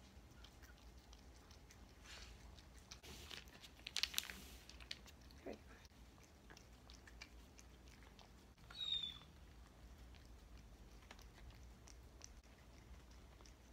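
Domestic cat eating wet canned cat food: faint chewing and licking clicks throughout, with a louder run of clicks about four seconds in and a brief high-pitched sound near nine seconds.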